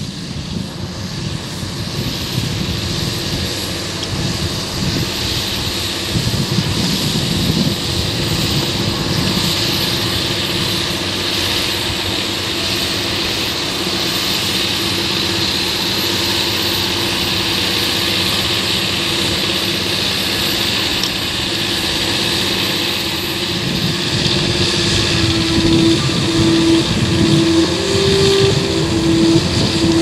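John Deere 7930 tractor's six-cylinder diesel engine working steadily under load as it pulls a six-furrow plough through the soil.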